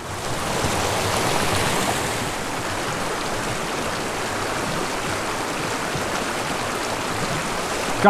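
Small mountain creek running over rocks in a shallow riffle: a steady rush of water, a little louder in the first two seconds while close to the surface, then even.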